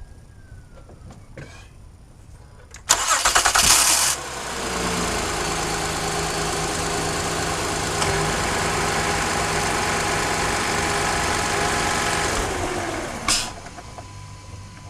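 2012 Acura TL's 3.5-litre V6 being started: the starter cranks for about a second, then the engine catches and idles steadily with no belt or alternator squeak, showing that the new alternator has cured the noise. Near the end the engine sound drops away and there is a single sharp click.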